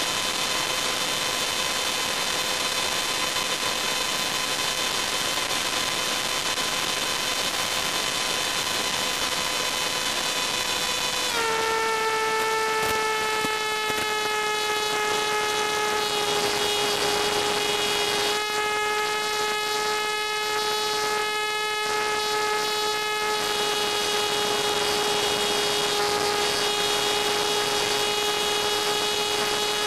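Onboard audio of a Funjet FPV flying wing in flight: a steady pitched hum with many overtones over an even hiss. About eleven seconds in, the hum drops slightly in pitch and holds there.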